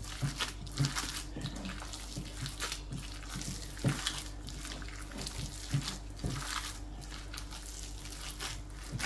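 Gloved hands kneading a wet ground-meat mixture in a ceramic bowl: irregular squelching and slapping as the just-added water is worked into the meat, with a few louder squelches about four and six seconds in.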